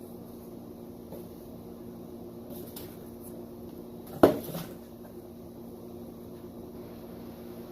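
Reptile shipping box and its packaging being handled: a few faint small clicks over a steady low hum, and one sharp knock a little over four seconds in, the loudest sound.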